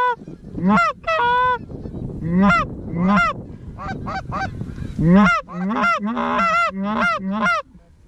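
Goose honks and clucks: a fast run of short two-note calls, thickest and loudest in the second half, with several overlapping around six seconds in.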